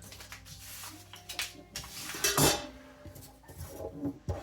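Metal clinks and knocks from a CCK carbon-steel Chinese cleaver being handled on a bench, with a louder clatter about two seconds in.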